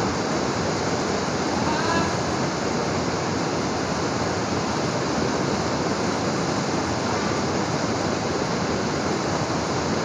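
Waterfall's steady rushing roar of falling water, with faint distant voices calling out about two seconds in.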